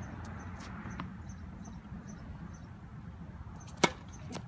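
A tennis ball struck hard by a racket close by, one sharp crack near the end, with a softer knock about half a second later. Underneath are a steady low rumble and faint high chirps repeating about three times a second.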